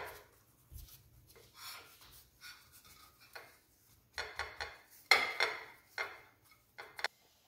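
Hands rolling a flour tortilla wrap on a ceramic plate: soft rubbing and rustling, with a few scrapes and knocks of the plate on the countertop. The handling is loudest about four to five seconds in.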